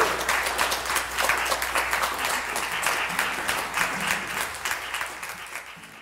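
Audience applauding, a dense patter of hand claps that gradually fades away toward the end.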